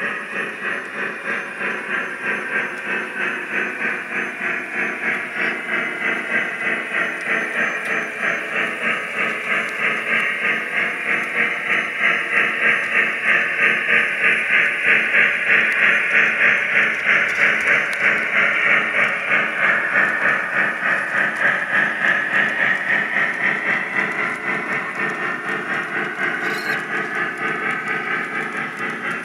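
Lionel Lionmaster 4014 Big Boy O gauge model locomotive running with its steam sound effects: steady rhythmic chuffing with a hiss, growing louder as the engine passes closest, then fading a little as it moves away.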